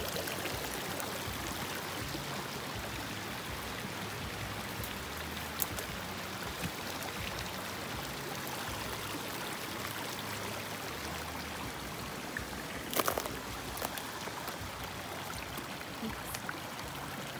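Small mountain stream running over rocks, a steady rushing of water. A few brief knocks stand out, the loudest a short cluster about three-quarters of the way through.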